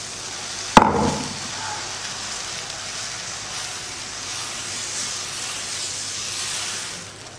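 Dosa batter sizzling on a hot tawa as a steel ladle spreads it in circles, with one sharp metallic knock about a second in. The sizzle swells, then fades near the end.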